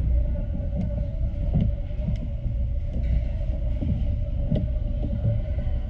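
Low rumble with soft, irregular thumps, picked up through the table by a camera resting on it as someone eats, over a steady hum.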